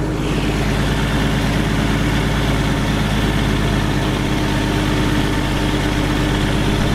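6x6 army truck's diesel engine running steadily while the truck crawls through a turn, heard from inside the cab.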